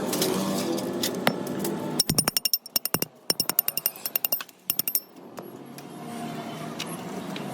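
A rapid run of sharp clicks with a bright metallic ring, lasting about three seconds, between stretches of a steady background hum.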